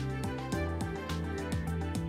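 Background music with a steady beat, about four strikes a second.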